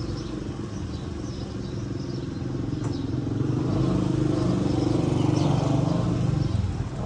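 A vehicle engine running through its exhaust after a fresh oil service and tune-up. It grows louder about halfway through and eases off again near the end.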